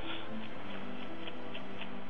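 Metal-bristled brush scratching quickly over a felt wool ball, a regular run of short scratches about four a second as it raises the fuzz, over soft background music.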